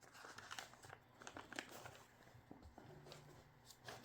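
Near silence: faint room tone with a low hum and soft scattered clicks and rustling.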